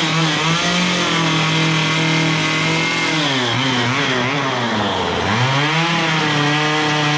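Two-stroke Stihl chainsaw with a carving bar running at high revs while cutting grooves into a wooden log. The engine pitch dips and recovers a few times, around the middle and again near the end.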